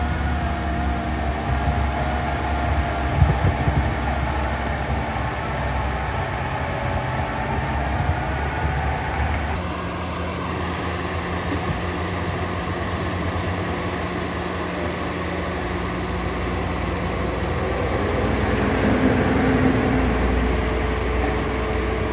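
Skid-steer loader running under load with a Coneteks 2.13M forestry rotor head deep-grinding stumps and roots into the ground: steady engine and rotor noise that changes abruptly about ten seconds in.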